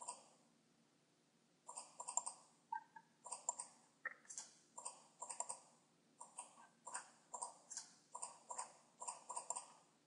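Computer mouse buttons clicking: faint, quick clusters of clicks. There is one click at the start, then after a pause about every half second from about two seconds in.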